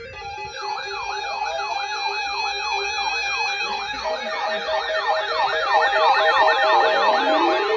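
Electronic yelp siren, its pitch sweeping rapidly up and down about three to four times a second over steady electronic tones. A lower tone begins rising near the end.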